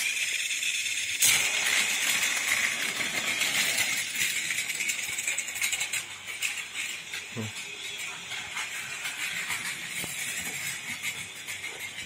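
Battery-powered plastic toy train running on plastic track: a steady motor whir with a fast rattle of the wheels and cars over the track. It starts as the train is set on the rails and gets a little louder about a second in.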